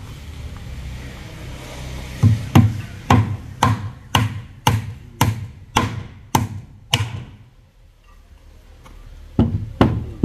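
Hammer striking the wooden formwork boards around a concrete column: about ten sharp blows, roughly two a second, then a short pause before the blows start again near the end.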